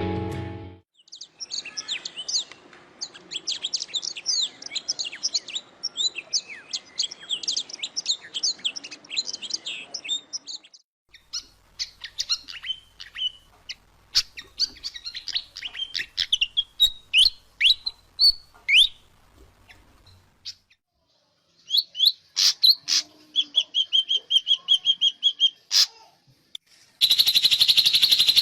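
Songbirds singing in a series of separate recordings: a rapid chatter of quick high notes for about nine seconds, then a different bird's sharp whistled notes, then a bird with short calls and a steady high trill. Near the end a loud continuous high buzzing trill starts.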